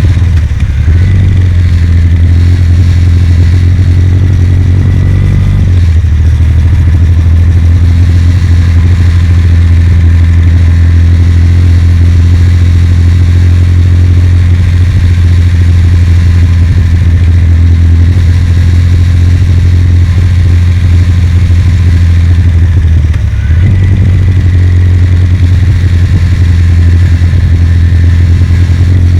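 Kawasaki W800's air-cooled parallel-twin engine running steadily under way, a loud, low exhaust note. Its pitch drops about six seconds in and rises again after a brief dip near the twenty-three second mark, as the engine speed changes.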